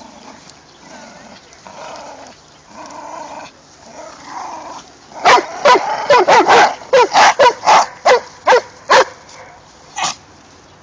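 Dog barking during stick play: about a dozen loud, sharp barks in quick succession from about five seconds in, then one more near the end, with softer dog sounds before them.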